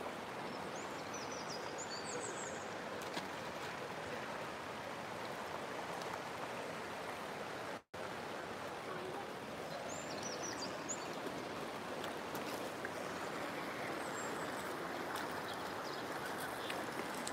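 Shallow river water rushing steadily over a gravel riffle, with a few faint high bird chirps. The sound cuts out for an instant about eight seconds in.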